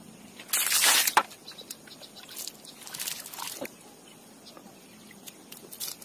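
Water splashing and sloshing in a basin as mushrooms are rinsed by hand. There is a loud burst about half a second in, a longer, softer stretch around three seconds in, and a brief splash near the end.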